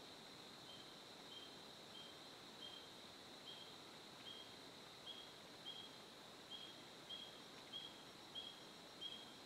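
Faint woodland ambience: a steady high-pitched drone with a short high chirp repeating about every two-thirds of a second, a little louder toward the end.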